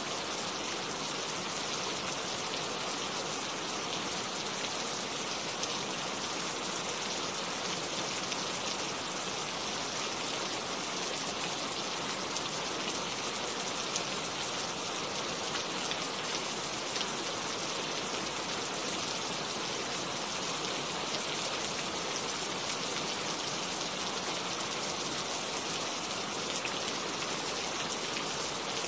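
Steady rain falling: an even hiss of many fine drops, with no thunder.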